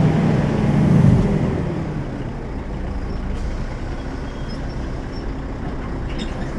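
Volvo B12M bus's 340 hp diesel engine running hard under load, then easing off about a second in. Its pitch falls and it settles into a quieter, lower steady run.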